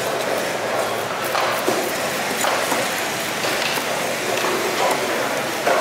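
Heavy knife chopping through a fish fillet onto a thick chopping block: a few sharp knocks about a second apart, the loudest near the end, over steady market background noise.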